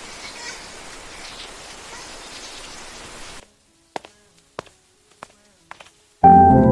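Steady rain hiss that cuts off abruptly about three and a half seconds in, followed by near silence with a handful of sharp ticks. Music starts loudly near the end.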